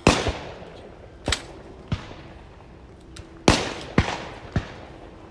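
Shotgun shots on a clay-shooting range: about seven sharp reports, each with a short ringing tail, some loud and some fainter, the loudest just at the start and about three and a half and four seconds in.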